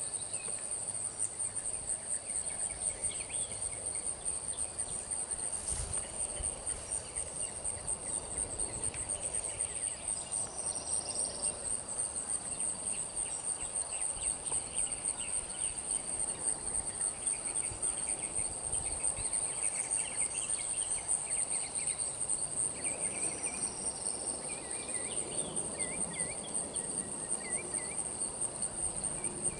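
Steady, high-pitched chorus of insects, with scattered short chirps through it.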